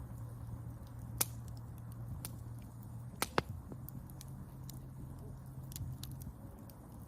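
Campfire of burning wood crackling, with scattered sharp pops: a loud one about a second in and two close together a little past three seconds. A steady low hum runs underneath.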